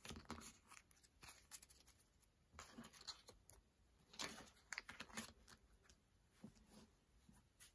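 Faint rustling and tapping of paper stickers being handled, squared into a stack and set down on a sticker album, in several short bursts.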